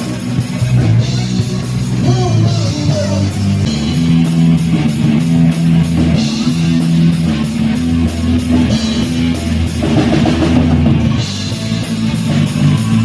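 Live rock band playing an instrumental passage: electric guitar, bass and drum kit, with cymbals keeping a steady beat.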